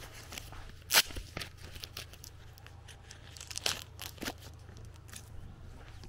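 Footsteps crunching on a gritty dirt road, with irregular crackles and a sharp crack about a second in, over a faint low rumble.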